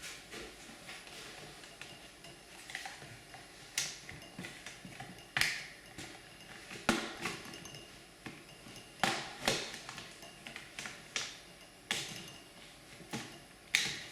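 Plastic case clips of a laptop's bottom cover clicking and snapping loose as a credit card is worked around the seam to pry it off: a series of sharp clicks at irregular intervals, some louder than others.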